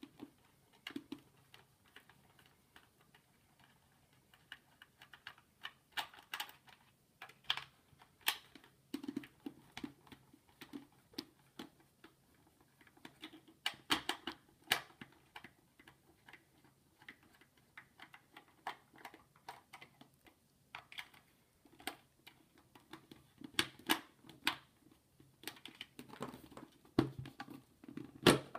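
Small screwdriver backing the screws out of a plastic diffuser base: irregular light clicks, ticks and scrapes of the metal tip in the screw heads, with taps of the plastic housing being handled.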